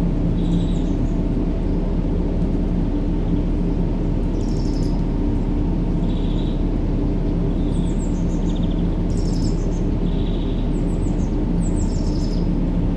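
Steady, loud low rumbling white noise of a baby-sleep sound track, with small birds chirping high above it every second or two.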